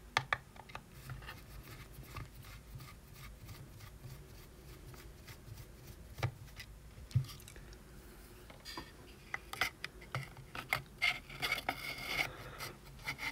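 A small screwdriver and fingers working on a circuit board inside a plastic case make faint scraping and rubbing, with a few light clicks. There is a busier run of clicks and rubbing in the last few seconds as the board is handled.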